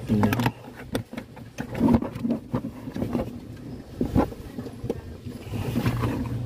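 A stiff TPE plastic car floor mat being handled and pressed into place, with a string of irregular knocks and clicks as it is worked over the floor-mat retaining lock.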